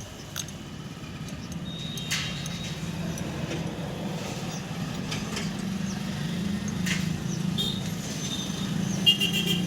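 A steady low mechanical hum with a few sharp clicks, and a brief high-pitched tone with clicks near the end.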